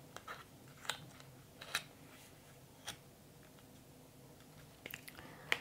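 A handful of faint, scattered clicks and taps as small items are handled, the sharpest one near the end.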